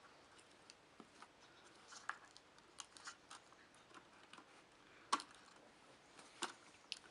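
Scattered light clicks and taps from handling the parts of an opened laptop, about seven in all and loudest about five seconds in, over near silence.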